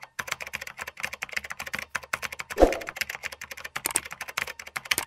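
Rapid typing on a computer keyboard: a dense, uneven run of keystroke clicks, with one louder thump about two and a half seconds in.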